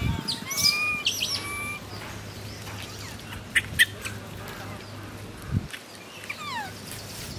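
Short, high, squeaky animal calls that bend up and down, several in the first two seconds and a few falling ones near the end, with two sharp clicks about three and a half seconds in.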